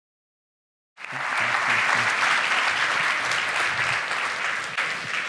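An audience applauding, cutting in abruptly about a second in after silence and holding steady.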